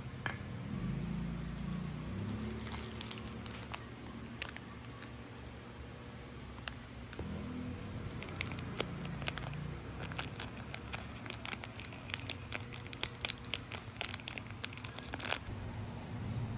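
Crinkling and irregular light clicks and taps of things being handled, growing busier about halfway through, over a low steady hum.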